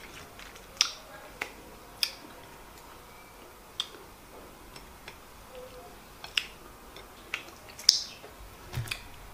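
A scattered series of short, sharp clicks and taps, about eight in all at uneven intervals, as peeled boiled eggs are picked from a glass bowl and set onto a ceramic plate of rice and stew.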